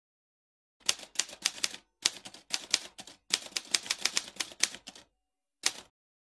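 Typewriter sound effect: keys clacking in three quick runs of strokes, then one last short strike about a second later.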